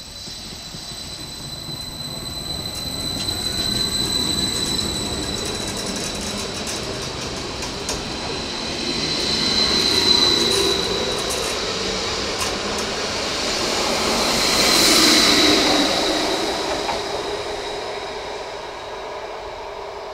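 Class 75 (Stadler FLIRT) electric multiple unit passing close by: rumbling and clicking of wheels on the rails with a steady high whine over it. It swells to two peaks about ten and fifteen seconds in as the cars go past, then fades as the train moves away.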